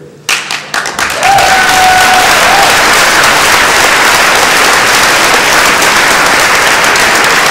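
Audience applauding: a few scattered claps at first, then steady, dense applause from about a second in.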